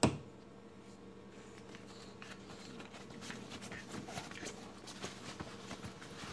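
Two small dogs wrestling on a padded dog bed: scuffling, rustling fabric and claws scratching in quick, irregular bursts that get busier over the last few seconds. A sharp knock at the very start is the loudest sound.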